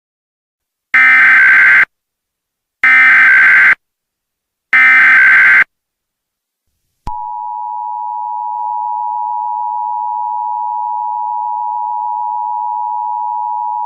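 Mock Emergency Alert System tones for an AMBER alert. Three one-second bursts of SAME digital header data sound about two seconds apart. After a short gap, the steady two-note EAS attention signal begins about seven seconds in with a click and holds.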